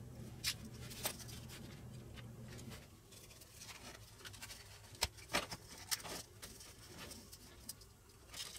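Scattered light clicks and taps of small plastic and cardboard parts being handled, as the radio kit's plastic dial stand and cardboard coil tube are picked up and turned over. A faint low hum underneath stops about a third of the way in.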